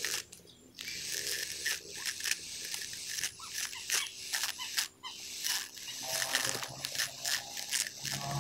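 Small motor of a homemade mini grass cutter cuts off, followed by irregular clicks and rustling. The motor hum starts again faintly about six seconds in.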